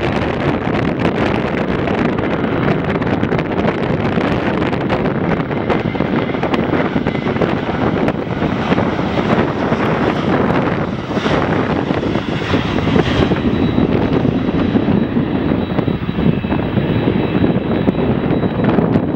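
Jet airliner passing the airport, its engines a loud steady noise mixed with wind on the microphone, with a faint high whine in the second half.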